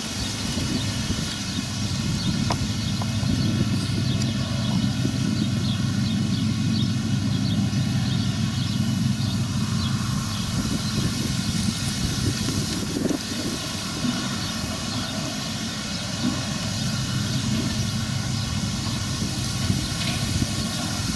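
Claas Arion tractor's diesel engine running steadily under load as it pulls a Claas square baler along a straw windrow, a continuous engine drone with the baler working behind it.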